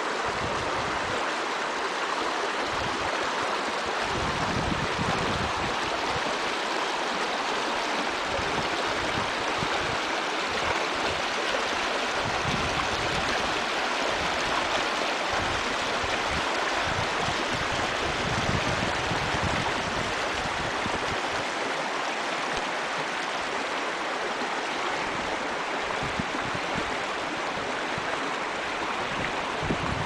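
Steady rushing of flowing water, like a stream, with no pauses or changes.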